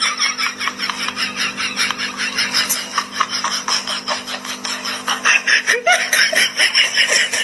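Hearty, high-pitched laughter going on without a break, in quick pulses of several per second, over a faint steady hum.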